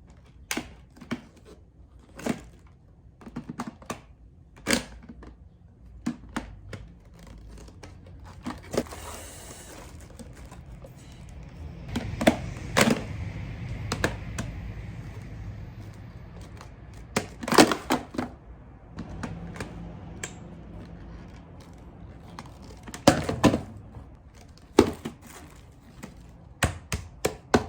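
Scattered sharp clicks and knocks with some rustling and crinkling, like plastic parts and packaging being handled, with a longer noisy stretch about halfway through.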